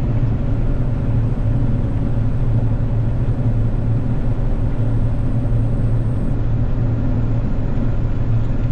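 Combine harvester running steadily under load while cutting wheat, heard from inside the cab: an even, unchanging low drone.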